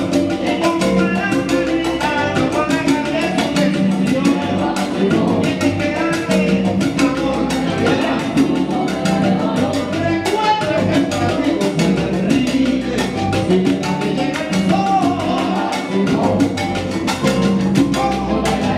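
Live salsa band playing at full volume: congas, timbales, bass and piano driving a steady Cuban rhythm, with a lead singer's vocals over it.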